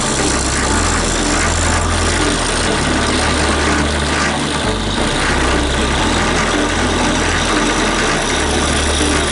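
Drill press running steadily: an even mechanical noise with a low hum underneath that shifts in level every second or two.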